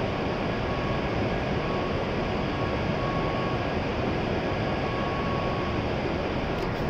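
Steady hum and rush of a stationary E7-series Shinkansen's ventilation and auxiliary equipment, with faint short high tones now and then and a few light clicks near the end.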